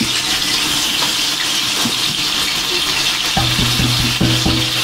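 Kadhi with pakoras simmering in a steel pot over low heat: a steady bubbling hiss. A low humming tone joins about three and a half seconds in.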